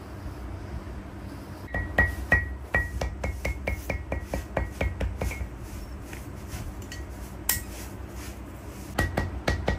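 Quick repeated taps of a heavy metal pestle-shaped hand tool pounding leather pieces flat on a stone slab, each tap with a short ringing note. About three or four taps a second, a pause in the middle with one lone tap, then the tapping starts again near the end.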